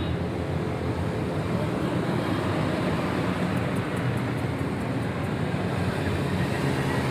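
Steady low rumble of road traffic, even throughout, with no single loud event.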